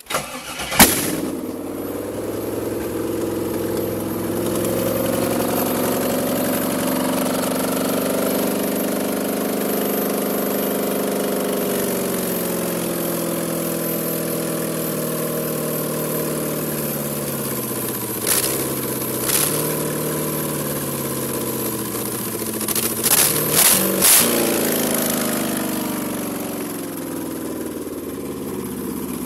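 5.3-litre LM7 V8 firing up about a second in with a sharp crack, then running loud with no exhaust fitted. The engine speed climbs, then eases back down as it settles to idle. A couple of sharp knocks come later, and a cluster of them near the end.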